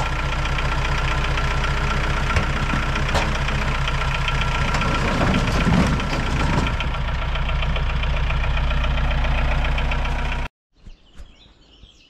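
Multicar M24 small transporter's engine running steadily while its tipper bed is raised to dump a load of firewood, with the logs clattering and sliding off about five to six seconds in. The sound stops abruptly near the end.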